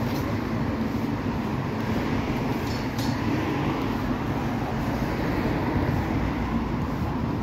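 Steady road traffic noise, a low rumble without break or swell.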